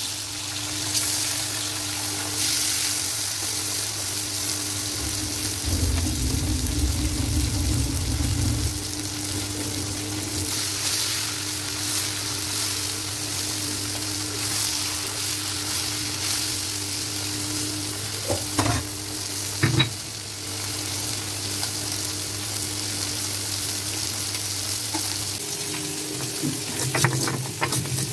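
Tilapia pieces frying in hot oil in a karahi, a steady sizzle, with a spatula knocking against the pan a couple of times partway through. Near the end, a quick run of scraping knocks.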